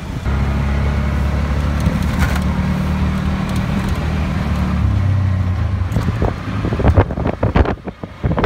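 Auto-rickshaw engine heard from inside the cabin, running with a steady low drone whose pitch steps up about five seconds in. In the last couple of seconds a run of sharp knocks and rattles comes to the front.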